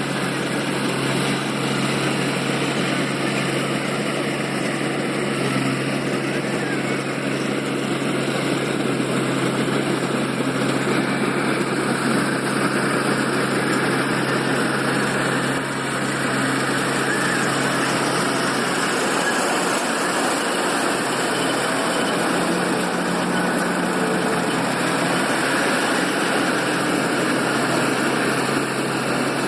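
Kuldeep combine harvester running steadily while harvesting rice: a constant engine hum under the dense, even whir of its machinery.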